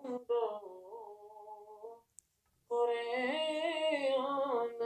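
Solo unaccompanied voice singing an Urdu naat, drawing out long wavering notes. It breaks off for a breath about two seconds in, then comes back louder on a new line.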